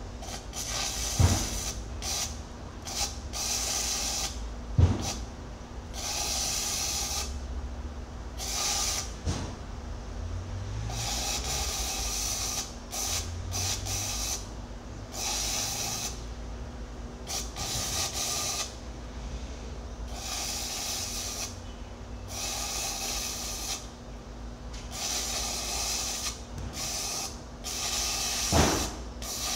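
Electric arc welding on a steel excavator bucket: the arc crackles and hisses in runs of one to a few seconds with short breaks between beads. A few sharp knocks stand out, about a second in, near five seconds and near the end, over a steady low hum.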